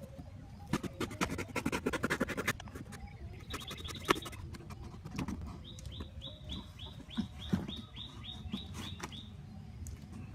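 A bird calling: a quick series of short, falling chirps, about four a second, for several seconds in the middle. Before the chirps comes a brief flurry of rapid rustling clicks.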